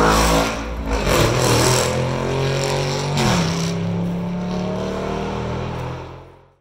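Lamborghini Urus twin-turbo V8 fitted with cat deletes and a race exhaust, pulling under acceleration. The pitch drops abruptly at an upshift a little past three seconds, then climbs steadily again before fading out at the end.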